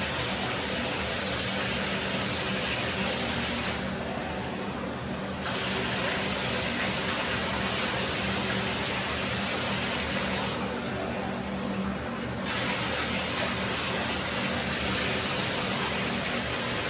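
Water from a bathtub tap gushing steadily into the tub while a dog is wetted down with a cup. The hiss dulls twice for a second or two.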